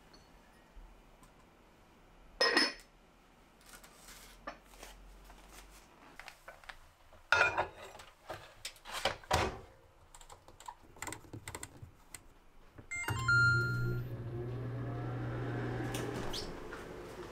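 A ceramic rice pot knocked down and set into a microwave oven with a few loud clunks, then a run of small keypad clicks and short beeps as the timer is set. From about two-thirds of the way in the microwave runs with a steady hum, cooking the rice.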